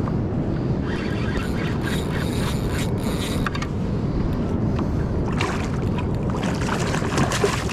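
Steady wind rumble on the microphone of an open-water fishing kayak. Over it come crackling higher sounds, and in the second half a hooked snapper splashes at the surface as it is reeled in beside the kayak.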